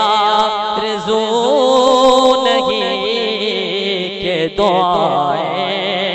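A man singing a naat, drawing out long wavering notes between the lines of verse, with a short break about four and a half seconds in before the next phrase begins.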